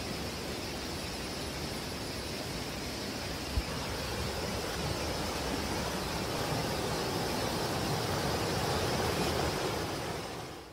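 Steady rush of a rocky jungle stream's cascade, growing louder in the second half. One short thump about three and a half seconds in.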